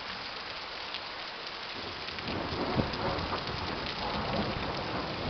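Steady heavy rain with thunder: a low rumble builds about two seconds in, peaks in a sharp clap about a second later, and keeps rolling over the rain.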